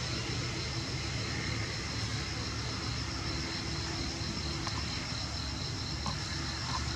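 Steady outdoor background noise: a low rumble with a steady, finely pulsing high buzz over it. A few faint clicks come in the second half.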